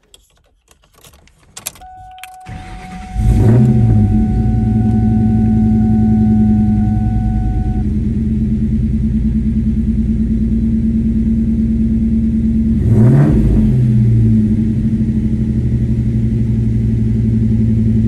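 Ford Mustang engine cranking briefly, then catching with a quick flare in revs and settling into a steady idle, with one brief rev and drop about ten seconds later; it starts now that the faulty fuel rail pressure sensor has been replaced. A steady electronic warning tone sounds for the first few seconds, over a few clicks as the key is turned.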